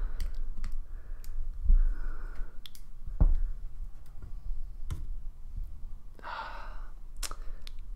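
Close handling noise of fingers and metal tweezers working on a small plastic phono cartridge, with scattered small clicks and a couple of knocks of the tool against the camera over a low rumble. A few breaths, the longest near the end.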